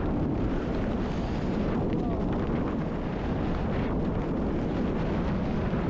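Wind buffeting the camera microphone during a tandem parachute descent under an open canopy: a steady low rumbling rush of air.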